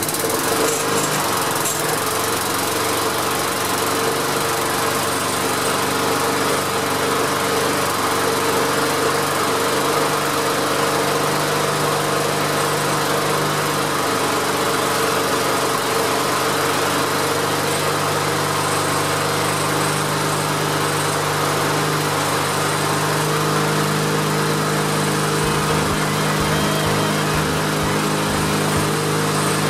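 Rotary lawnmower's 3.75 hp single-cylinder four-stroke engine running steadily, just started for the first time after a full restoration. Near the end a low, uneven rumble comes in under the steady engine note.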